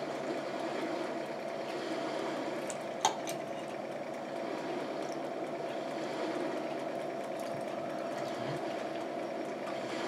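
Steady background hum with a metal fork clinking once against a plate about three seconds in, and a few fainter light ticks of cutlery.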